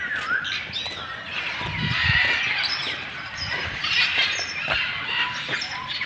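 Many birds chirping and squawking at once, a busy chorus of short overlapping calls and quick pitch glides.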